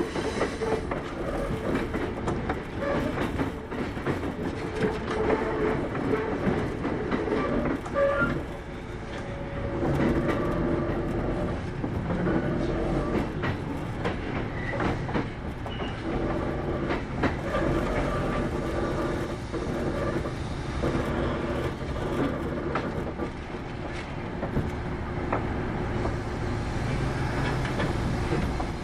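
Kintetsu 8810 series electric train running at speed, heard from inside the car: steady running noise and motor hum with wheels clicking over rail joints, easing a little about eight seconds in and picking up again about two seconds later.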